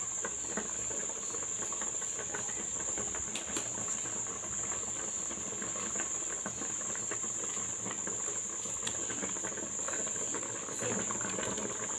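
Pot of egusi soup cooking in plenty of palm oil, sizzling and crackling with many small pops, over a steady high-pitched whine.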